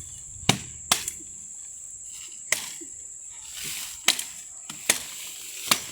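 Wood being chopped with a blade: six sharp, irregular strikes into a branch, with the gaps between them ranging from half a second to a second and a half. A steady high insect whine runs underneath.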